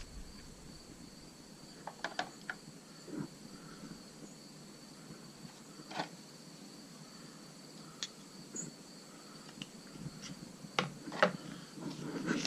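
Scattered small clicks and taps of a plastic magnetic phone mount and its parts being handled, a few seconds apart, over a steady hiss with a faint high whine.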